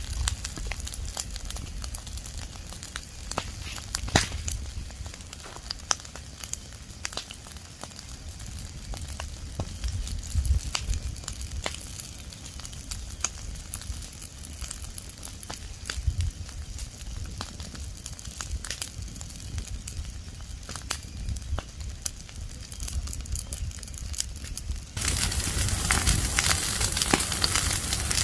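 Burning leaves and twigs crackling, with irregular sharp pops and snaps over a low rumble. About 25 seconds in the fire gets louder and a steady hiss joins the crackle.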